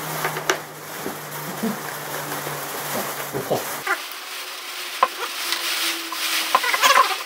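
Light knocks, taps and scrapes of thin plywood strips being handled and laid on a board, over a steady hiss, with the knocks most frequent near the end.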